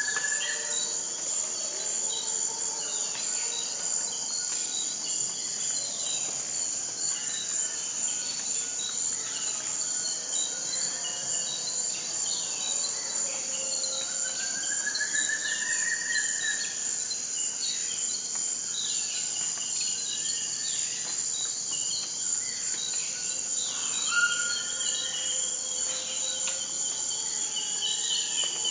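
Insects trilling steadily at a high pitch, with birds chirping and calling now and then over it, including a few rising whistled calls.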